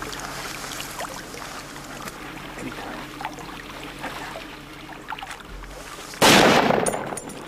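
A single hunting rifle shot about six seconds in: a sudden loud crack whose echo dies away over about a second. Before it there is only faint outdoor background noise.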